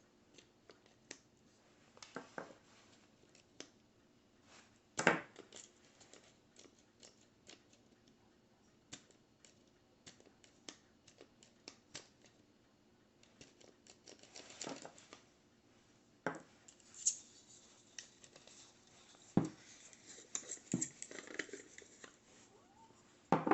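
Intermittent small clicks, scrapes and rustles of objects being handled, with a few sharper knocks standing out above them.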